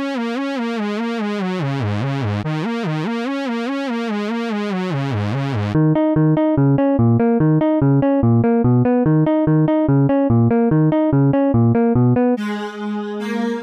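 Synthesizer and electric-piano music. It opens with a fast run of rippling notes. About six seconds in it changes to a bouncy staccato pattern of short notes over a bass, about three notes a second, and a brighter new instrument comes in near the end.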